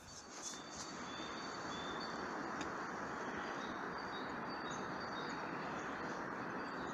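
Nature ambience: a steady rushing background noise with small birds chirping in short, high, thin tweets scattered throughout. It fades in over the first second.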